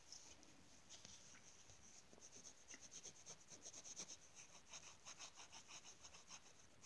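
Faint scratching of a coloured pencil colouring in, in quick back-and-forth strokes, several a second.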